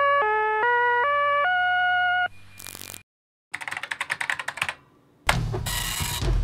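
A short electronic melody of five beeping notes, the last held longer, ending in a brief whoosh. After a short pause comes rapid clicking from a beige mechanical computer keyboard being typed on. About five seconds in, an old dot-matrix printer starts printing with loud buzzing passes of the print head.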